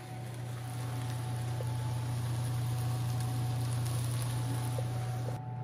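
Beef, potato, onion and green pepper frying in a wok over a gas burner: a steady sizzle over a low hum, the sizzle cutting off shortly before the end.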